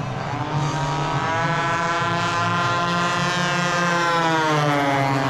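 Radio-controlled model warbird airplane engines and propellers droning in flight. One engine's pitch rises about a second in, holds, and falls away near the end, over a steadier low drone.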